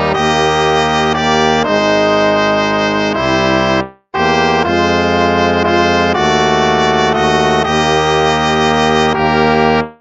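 Instrumental hymn played in slow, sustained brass chords, with a brief silence between phrases about four seconds in.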